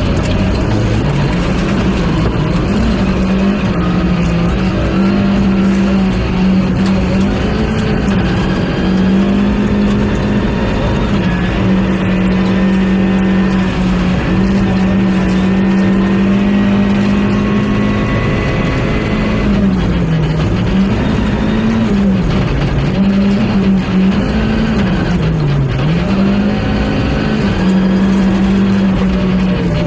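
Rally car's engine running hard at high revs. Its note holds steady for long stretches, then drops and climbs again several times in the second half as the car brakes and accelerates through corners.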